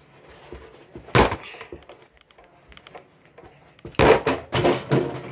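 Punches landing on a leather speed bag, each a sharp thump: one about a second in, then three in quick succession near the end.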